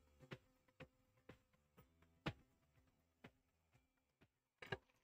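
Near silence, with a few faint scattered clicks; the loudest comes about two seconds in and a short cluster near the end.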